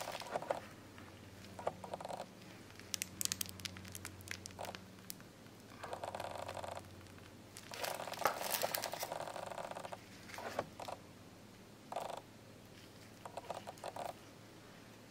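Plastic piping bag crinkling and rustling in short, faint bursts as buttercream is squeezed onto macaron shells, with the light rustle of gloved hands and a few soft clicks as shells are handled.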